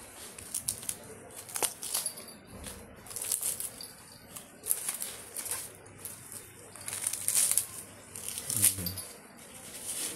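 A dog chewing on a corn on the cob and tearing off its husks: irregular crunching and crackling of husks and kernels.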